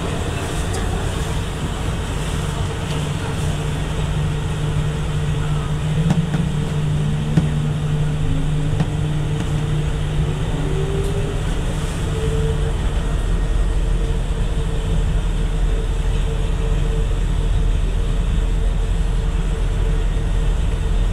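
Bukit Panjang LRT car running on rubber tyres along its concrete guideway, heard from inside: a steady rumble with a hum. About six seconds in, a whine rises in pitch over several seconds, and the deep rumble grows stronger in the second half.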